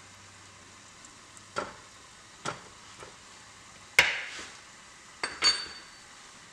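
Kitchen utensils knocking and tapping against cookware: about six separate sharp clicks and knocks, the loudest about four seconds in, with a short ringing clink just after five seconds.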